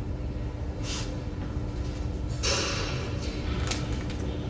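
Hands working on the forming section of a pillow packing machine, with a short click about a second in and a rustling scrape of metal parts or film about two and a half seconds in, over a steady low hum.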